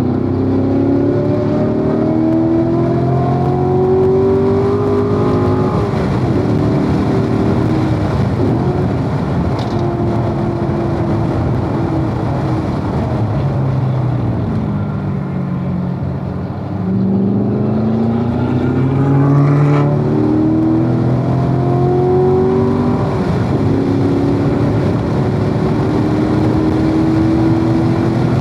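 Corvette V8 heard from inside the car at full track pace: the engine pulls up through the revs with an upshift about six seconds in, then drops in pitch as the car slows through a corner about halfway. It then accelerates hard again with further upshifts near two-thirds of the way and later, over steady tyre and wind noise.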